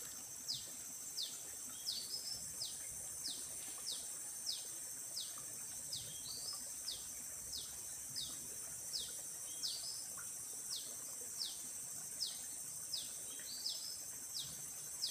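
A bird repeating a short, high call that falls sharply in pitch, about one and a half times a second, sometimes with a brief second note, over a steady high insect drone.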